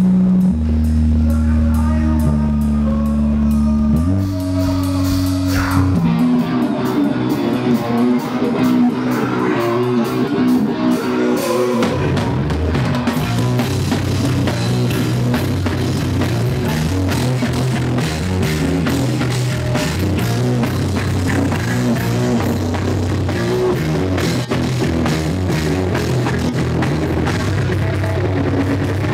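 Live rock band with drums, electric guitars and bass, played loud. For the first several seconds only held low notes sound, changing every second or two. About six seconds in the full band comes in, with dense drumming and a moving bass line.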